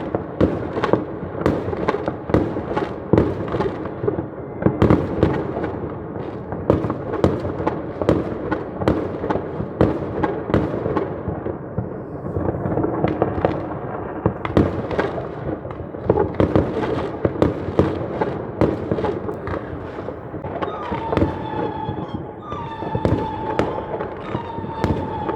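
New Year fireworks going off: a dense, irregular string of bangs and crackling bursts over a continuous rumble of distant salvos. Near the end, a held whistling tone joins in.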